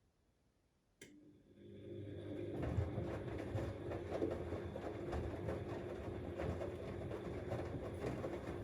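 Siemens Extraklasse XLS 140 A washing machine in its wash cycle: after a moment of quiet, a click about a second in, then the motor starts and the drum turns. This settles into a steady mechanical hum with irregular knocks and rattles from the tumbling load.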